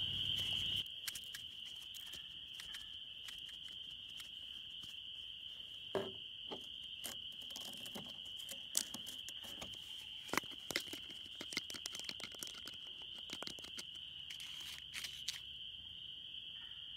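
Crickets chirping in a steady, high-pitched chorus, with scattered light clicks and crinkles from aluminum foil being handled close by.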